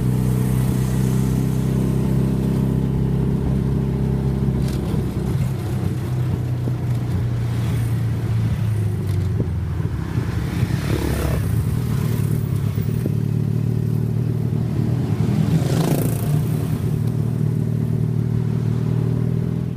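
Tuk tuk engine running steadily, heard from the open passenger compartment while riding in traffic. Other vehicles pass close by, once about halfway through and again near the end.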